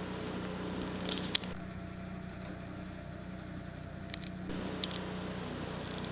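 Snowblower engine running steadily in the distance as a low, even hum, with a few soft clicks.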